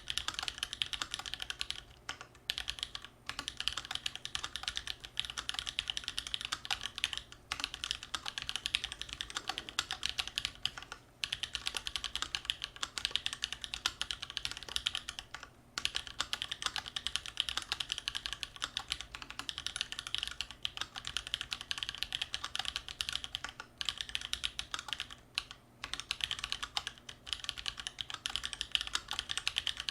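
Continuous fast typing on a custom mechanical keyboard with Holy Panda tactile switches in a steel plate and GMK keycaps: a dense run of keystroke clacks, broken by a few brief pauses.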